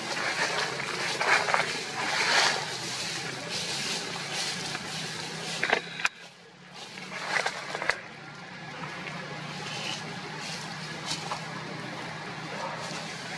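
Dry leaf litter rustling and crackling with irregular crunches and sharp clicks as a macaque walks and forages over it, over a steady low hum.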